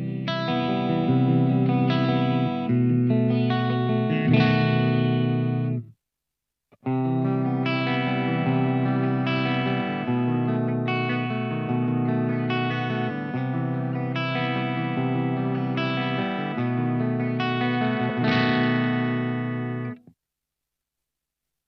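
SLX Raven Modern Pro 24 HH electric guitar with Seymour Duncan humbuckers, played through an amp with effects: ringing chords and notes. The playing breaks off briefly about six seconds in, then stops at about twenty seconds.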